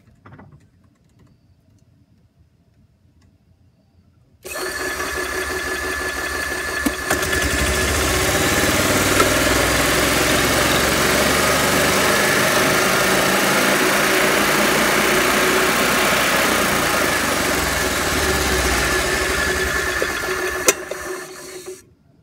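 Club Car gas golf cart engine starting suddenly about four and a half seconds in and running steadily with the drive clutch and belt spinning, the cart in maintenance mode. A sharp click comes just before the engine shuts off near the end.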